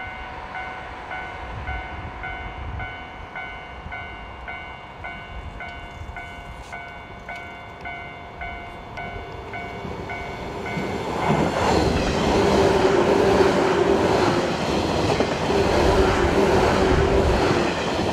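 Japanese level-crossing warning bell ringing in a steady, rapid repeating ding; from about 11 seconds in an electric commuter train passes close by, its rumble and wheel clatter growing much louder and covering the bell.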